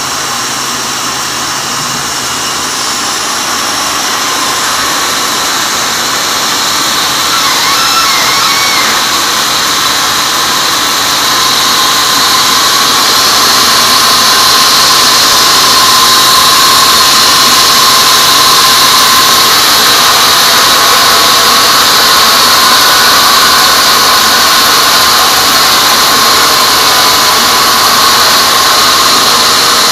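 Large sawmill band saw cutting through a teak log: a loud, steady machine whine with a high squeal, growing louder over the first dozen seconds and then holding level.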